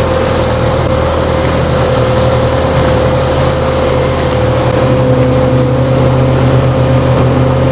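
Boat motor running steadily at low speed, a continuous hum that shifts slightly in pitch about five seconds in.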